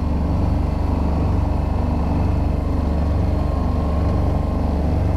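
Sailboat's engine running steadily under way, a constant low drone.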